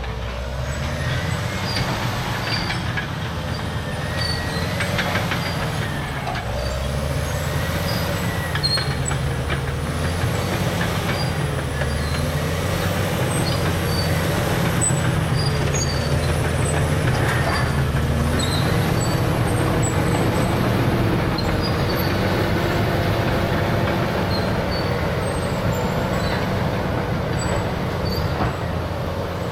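CAT D6R crawler dozer's C9 diesel engine running under working load, its pitch rising and falling as the load changes, with a high wavering whine over it.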